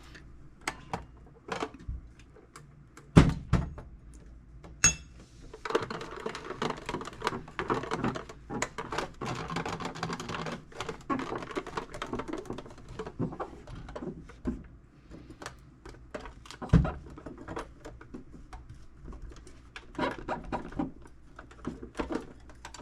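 Microfiber cloth wiping and scrubbing over a metal tool box, with clicks and knocks of handling. A heavy thump about three seconds in and a short ringing clink near five seconds come before a long stretch of steady scrubbing, followed by scattered knocks.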